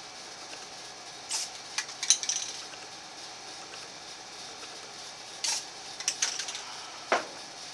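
Clicks and clatters of a spray can and a thin camo stencil being handled against a rifle lower receiver. They come in two short clusters a few seconds apart, then a duller knock near the end, over a faint steady hiss.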